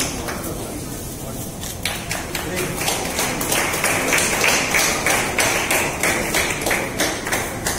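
An audience clapping in scattered, irregular claps, over a murmur of voices in a hall.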